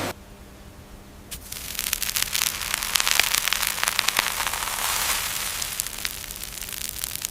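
Dense crackling noise made of many fine ticks and clicks, starting about a second in and thinning out near the end.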